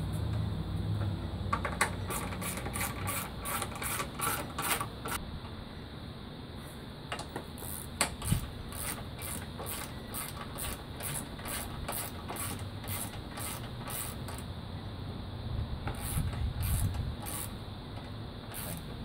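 Socket ratchet clicking in quick runs of about four clicks a second, stopping and starting, as the bolts on the fender-to-radiator-support brackets are turned.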